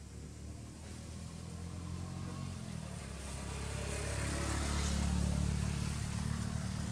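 A motor vehicle engine passing by off-camera, growing louder to a peak about five seconds in, then starting to fade.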